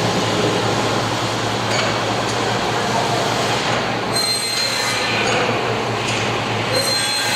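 Precision rubber stripper ring grinder running: a steady grinding hiss over a constant low machine hum, with a brief high whine about four seconds in.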